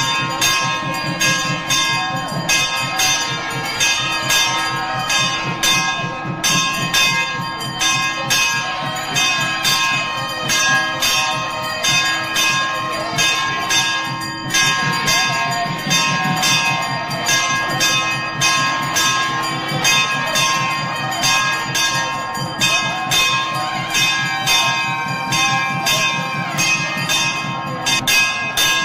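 Temple bells ringing continuously: metal bells struck rapidly over and over, with a steady ringing tone held underneath.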